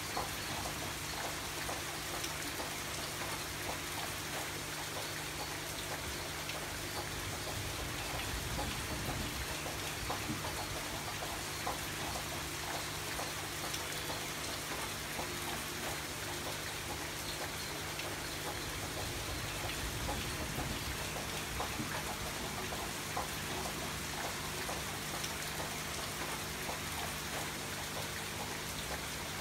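Steady rain falling, an even hiss dotted with many small drop ticks, with a faint low hum underneath.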